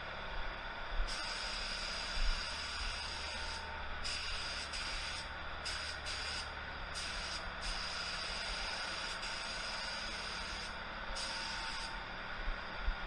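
ITALCO Shine 1 gravity-feed HVLP spray gun spraying paint in a series of hissing passes, the hiss cutting out briefly each time the trigger is let off between passes, about five times. A steady low hum runs underneath.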